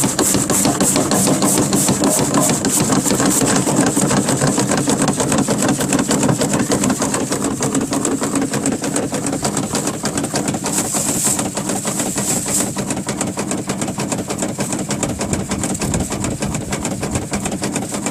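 Electric carrot-shredding machine with a 1.1 kW motor running steadily: a motor hum under a fast, even rattle, with two brief hissier bursts about eleven and twelve seconds in.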